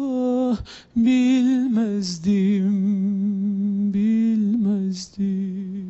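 A man singing unaccompanied, holding long notes with a slight waver as he draws out the song's closing phrases, with short breaks between phrases.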